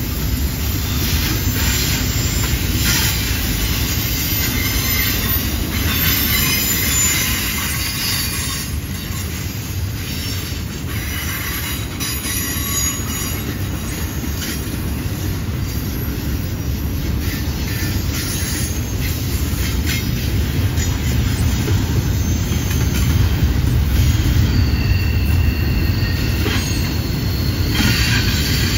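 Double-stack container well cars of a freight train rolling past: a steady rumble of steel wheels on rail, with high-pitched wheel flange squeal coming and going as the cars round the curve, strongest near the end.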